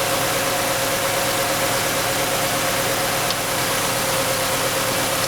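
1999 Honda Accord's 2.3-litre four-cylinder engine idling with an unresolved misfire, a steady, even running noise with a steady whine over it.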